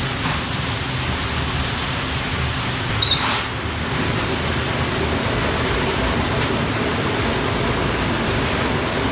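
Motor-driven centrifugal spinner whirling a perforated drum of freshly washed parts, running steadily with a low hum under workshop machine noise. A short, sharp clatter comes about three seconds in, as the drum is set on and started.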